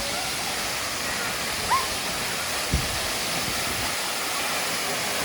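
Waterfall rushing steadily as a constant roar of falling water. A faint short call sounds about a second and a half in, and a dull thump comes a second later.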